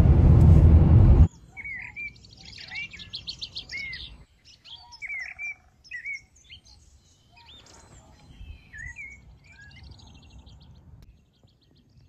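Songbirds chirping and trilling: repeated short, swooping calls mixed with quick trills. A loud low rumble cuts off abruptly about a second in, just before the birdsong starts.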